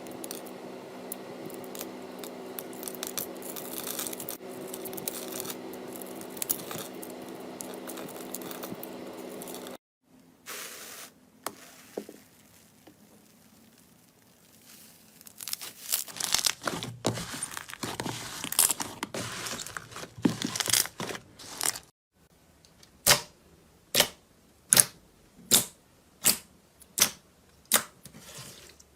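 Slime being stretched and torn by hand, crackling steadily for about ten seconds. After a quiet pause there is more irregular crackling, then a regular run of sharp pops or clicks, about one a second, to the end.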